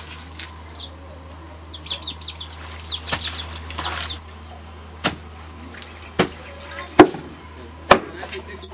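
Chicken calls in the first half. Then a long wooden pestle pounds cassava leaves for sombe in a wooden mortar: four heavy thuds about a second apart, the third the loudest.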